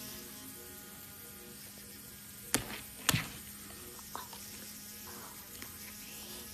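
Steady electrical hum, broken by two sharp knocks about half a second apart near the middle, then a few faint ticks.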